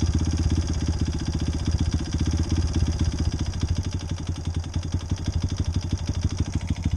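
An engine idling steadily, with a rapid, even chugging of firing pulses.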